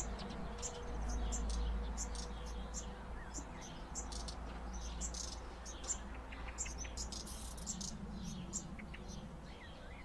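Black redstart fledglings giving short, high begging calls, many in a row at irregular intervals, over a steady low rumble.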